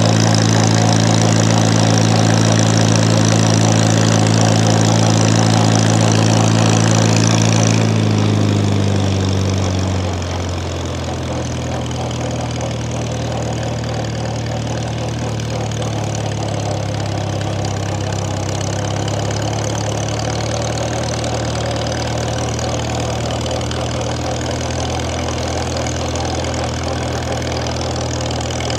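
1950 Farmall Cub's four-cylinder flathead engine running steadily as the tractor drives along, heard from the seat. About eight seconds in, the engine slows: its pitch drops and it goes a little quieter. It then runs on steadily at the lower speed.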